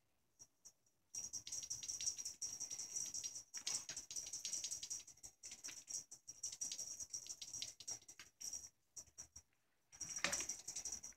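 Fast, irregular rustling and scratching as a cat bats and pounces at a rope teaser toy on bedsheets. It starts about a second in, breaks off briefly near the end, then resumes.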